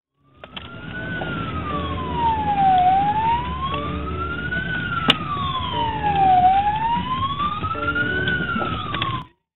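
Police siren wailing in a slow rise and fall, repeating about every three and a half seconds, over a vehicle's engine rumble. There is one sharp click about five seconds in, and the sound cuts off abruptly near the end.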